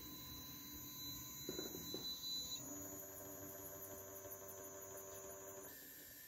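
Stepper motors of a homemade egg-painting machine humming and whining as they step. The pitch switches to a new set of tones about two and a half seconds in and again near the end. A brief knock about a second and a half in.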